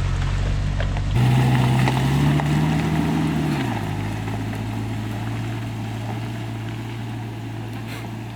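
Car engine working along a rough forest track: a steady hum that rises in pitch for a second or so, drops back sharply, then settles and slowly fades.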